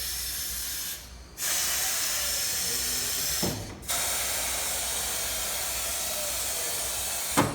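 Compressed air hissing from a Coats 9010E tire changer's pneumatic controls, in three long blasts with short breaks between them, each break and the final cut-off marked by a sharp click of the valve.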